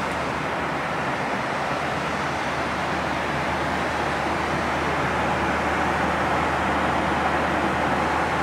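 Steady noise inside a jet airliner's cabin in flight: an even rushing hiss with a low hum beneath it, rising a little in the second half.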